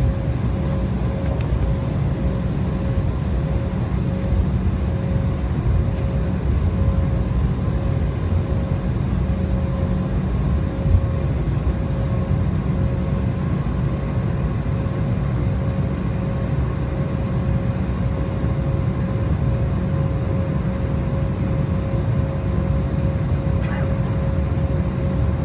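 Steady cabin drone inside an Embraer 190 airliner: the jet engines and airflow make a deep rumble, with a steady whine held over it.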